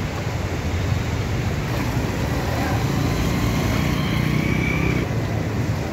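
Street traffic noise: motor vehicles running steadily, swelling a little toward the middle.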